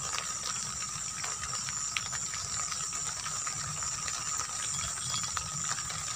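Steady chorus of night insects: a continuous shrill trilling high up and a lower steady drone, over a low rumble.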